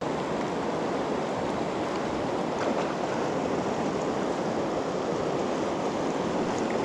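Fast, shallow river current rushing over a rocky riffle: a steady wash of water noise.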